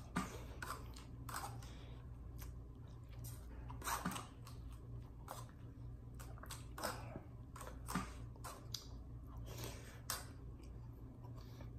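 A person eating soup with a spoon: quiet chewing with scattered small clicks and scrapes of the spoon on the bowl, over a low steady hum.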